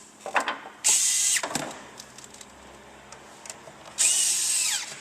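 Two short bursts of a power tool running on fasteners, one about a second in and a longer one near the end, each a loud hissing, rattling whir.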